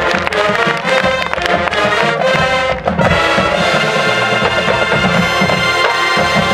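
High school marching band playing: brass over driving drum and mallet-percussion hits for about three seconds, then the brass holds a long loud chord.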